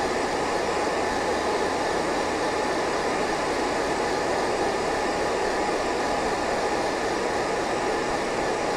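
Hair dryer running steadily, an even rush of air with no breaks, warming a waterslide decal softened with Micro Sol setting solution so that it settles into the surface.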